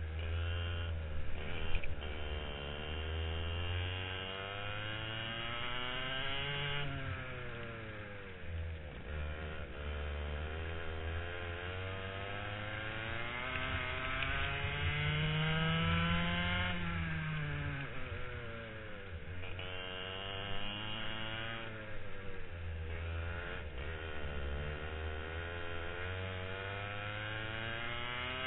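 Onboard sound of a racing kart engine revving, its pitch climbing steadily along the straights and dropping sharply each time the throttle is lifted for a corner, several times over. A short loud knock comes about two seconds in.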